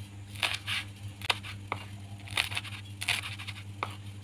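Knife slicing red bird's-eye chilies on a cutting board: a few sharp knocks of the blade on the board with short scraping sounds between them, over a steady low hum.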